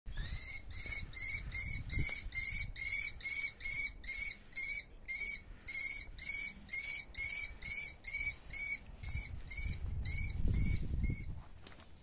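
A bird of prey calling a long, even series of short, high, piping notes, about three a second, which stops shortly before the end. A low rumble sits under the last few calls.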